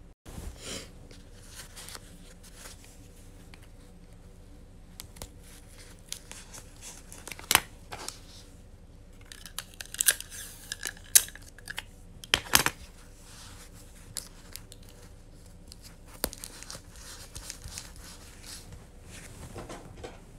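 Sticky tape pulled off the roll of a tape dispenser with a ragged, screeching rip for about two seconds, starting about ten seconds in, then torn off on the cutter. Sharp clicks and knocks of the plastic dispenser being handled come before and after.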